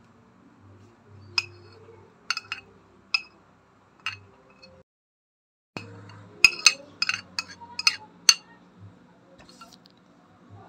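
Sharp clinks of a ceramic plate against a nonstick frying pan as minced garlic and sliced red chillies are tipped from the plate into the pan. A few scattered clinks come first; after a break of about a second midway, a quicker, louder run of clinks follows.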